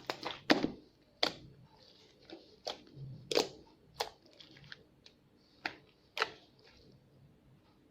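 Glitter slime being squeezed and kneaded by hand, giving about ten sharp, irregular pops and clicks.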